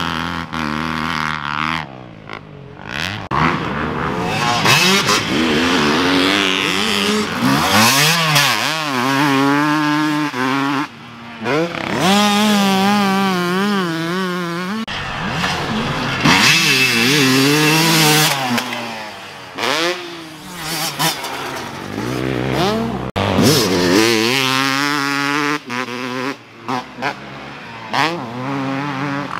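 Dirt bike engines revving on a motocross track, the pitch climbing and dropping again and again as the riders open and close the throttle and shift, with brief lulls in between.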